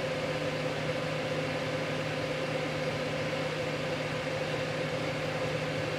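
Replacement 87 mm dual-ball-bearing cooling fans on a Radeon R9 390 graphics card spinning at full speed: a steady rush of air with a constant hum underneath.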